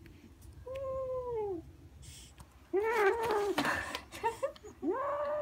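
Ginger tabby kitten growling possessively while gripping a fluffy toy in its mouth: three drawn-out, whining growls, each about a second long, rising then falling in pitch.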